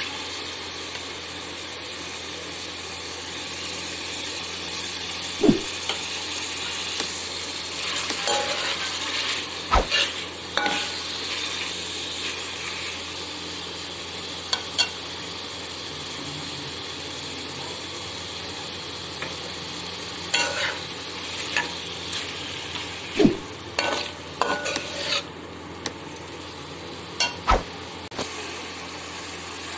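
Chicken pieces sizzling in oil in a metal wok, stirred with a perforated metal spoon that scrapes the pan and knocks sharply against it a few times.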